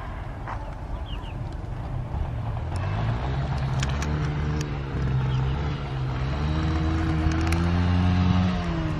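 Motorbike engines revving as young riders push their bikes hard, the engine note rising and falling and growing louder from about three seconds in.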